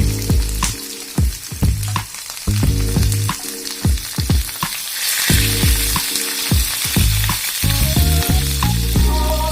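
Food frying in a pan, with sharp clicks of a spoon or spatula stirring against the pot and a brief louder sizzle about halfway through, over background music with a low bass line.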